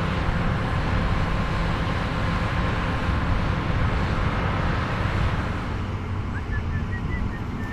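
Case IH AF10 combine with its 15.9-litre engine running steadily under load while harvesting corn with a 16-row corn head. The sound eases slightly about five seconds in.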